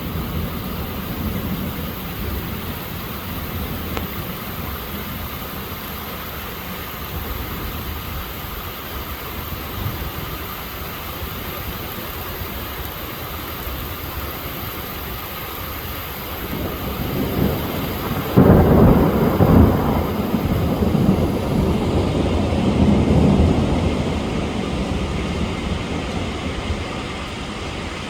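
Steady rain falling, with a long roll of thunder that builds about two-thirds of the way through, is loudest for a couple of seconds, swells once more and then rumbles away.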